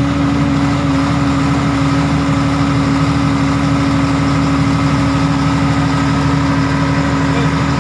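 Mitsubishi 125 kVA diesel generator set running steadily, a loud even engine drone with a constant hum.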